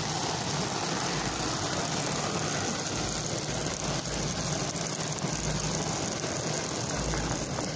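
Heavy metal chain dragging and scraping along a concrete sidewalk, pulled by a dog in a weight-pulling harness: a steady grinding rattle.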